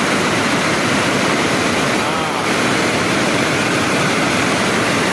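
Steady rush of water pouring over a dam's waterfall, with a brief faint voice about two seconds in.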